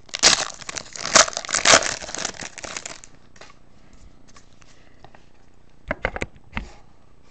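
A foil trading-card pack being torn open and crinkled by hand for about three seconds, then quieter handling of the cards with a few short, sharp sounds about six seconds in.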